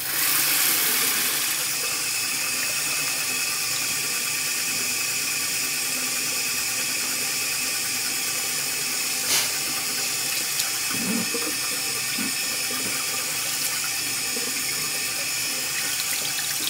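Water tap turned on and running steadily into a sink, with a single sharp knock about nine seconds in.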